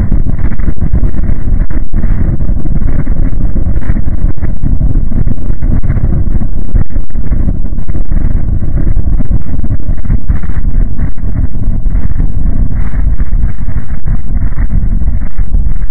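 Loud, steady low rumbling noise with no clear beat or pitch change, played as a deep-ocean hydrophone recording of an unidentified underwater sound. A faint steady high whine runs beneath it.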